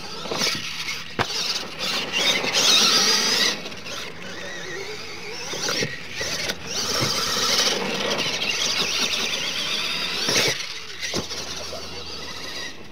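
Scale RC monster truck's motor and drivetrain whining high, swelling and fading as the throttle is worked, with its tyres on loose dirt. A few sharp knocks are heard as it hits and lands off the ramps.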